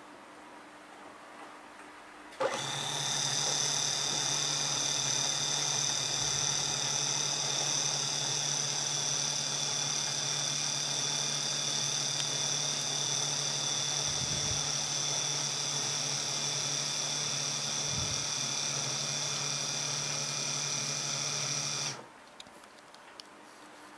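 Philips SensoTouch 3D rotary shaver in its Jet Clean base, a small electric motor running with a steady whir as the unit cleans. It starts abruptly about two seconds in and cuts off abruptly near the end.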